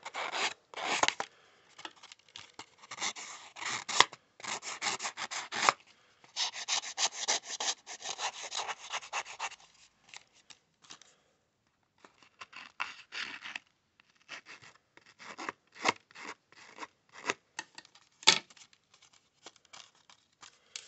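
An open scissor blade scraped along the edge of a paper panel in quick rasping strokes, roughing up the edge to give it a ragged, aged look. The strokes come in dense runs, pause briefly about halfway through, then return shorter and sparser.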